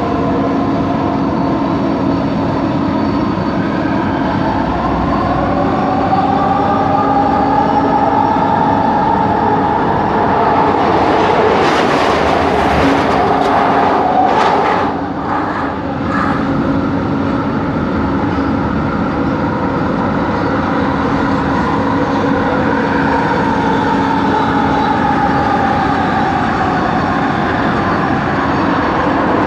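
Electric LRT train running, heard from inside a coach: the traction motors whine in several tones that rise in pitch a few seconds in and fall again near the end, over steady rolling noise and a low hum, with a brief rushing noise in the middle. The whine is the unusual motor noise that the rider traced to coach 4 of the set.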